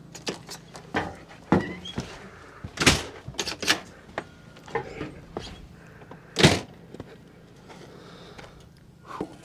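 Scattered knocks, clicks and thumps of someone moving about and handling things, with two louder thumps about three and six and a half seconds in.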